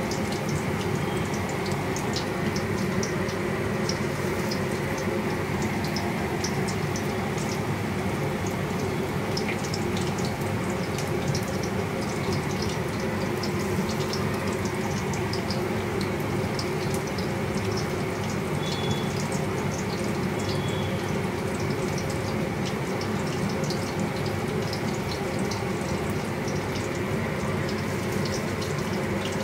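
Battered chicken pakoras deep-frying in hot oil in a wok: a steady sizzle with many small high crackles and pops throughout.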